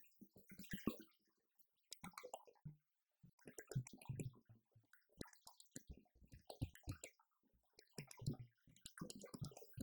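Drums played on a Roland TD-50X electronic drum kit: irregular clusters of sharp strokes, several with deep low hits, in fills separated by short gaps.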